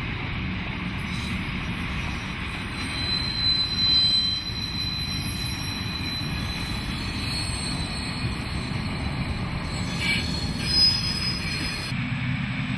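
Freight train passing close by: the wagons roll over the rails with a steady rumble and thin, high wheel squeal. A Deutsche Reichsbahn BR 112 (V100) diesel-hydraulic locomotive marshalled in the train goes by about halfway through.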